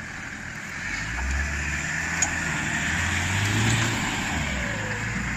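Land Rover Defender's engine working under load as it climbs a steep dirt track off-road, the low rumble swelling about a second in and easing off near the end, with its tyres churning loose dirt.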